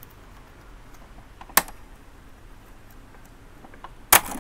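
Sharp plastic clicks from an Epson L120 print head carriage being worked loose by hand: one click about a second and a half in, then a louder double click near the end.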